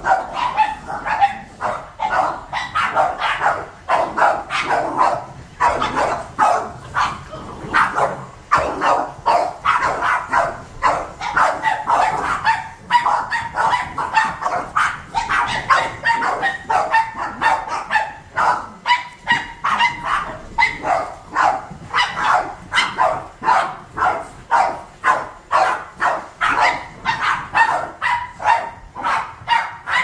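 A pack of Boston Terriers barking nonstop at a running cordless stick vacuum, overlapping barks coming two or three a second without a break.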